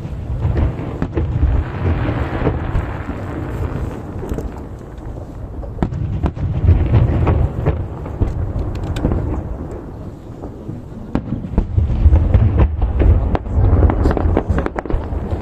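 Aerial firework shells bursting over the sea in quick succession. Deep booms overlap into a continuous rumble, shot through with sharp cracks and crackling, swelling louder three times.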